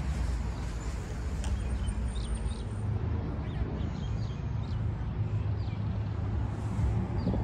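Outdoor ambience: a steady low rumble, with birds chirping faintly now and then in short high calls.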